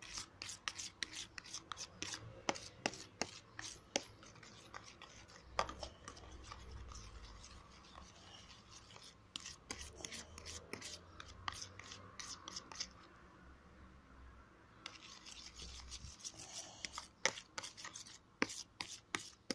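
Metal teaspoon stirring a thick, sticky mix of dish soap and baking soda in a plastic container, scraping and clicking against the sides in quick irregular strokes, with a short pause partway through.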